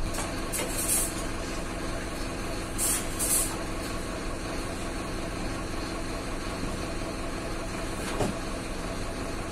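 City bus engine idling steadily, with a few short hisses about one and three seconds in.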